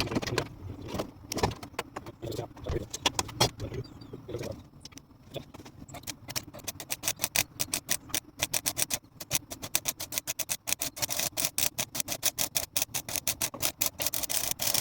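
Welding on rusted sheet steel: a few scattered knocks and clanks at first, then from about five seconds in a fast, steady crackle of short pops as the arc builds up weld to fill rusted-out metal.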